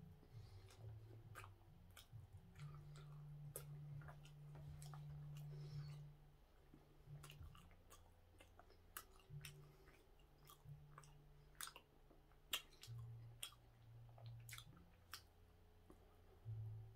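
Quiet, close mouth sounds of a man biting and chewing a soft steamed bun: soft wet smacks and scattered small clicks, over a low hum.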